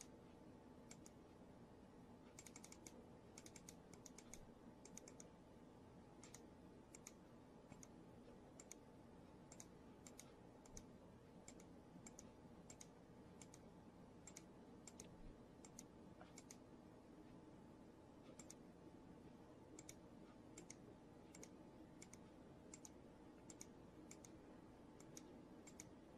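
Faint, irregular clicking of computer controls as images are paged through, one or two clicks a second, sometimes in quick runs, over a faint low steady hum.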